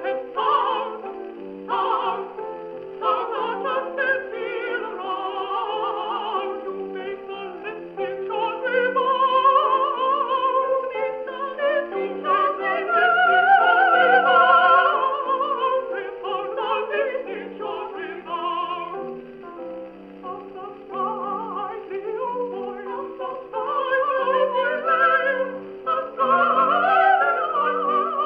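A 78 rpm shellac record playing through the horn of an EMG Mk VII acoustic gramophone with a thorn needle: a soprano and a contralto singing a Baroque duet with piano, the voices with a strong vibrato.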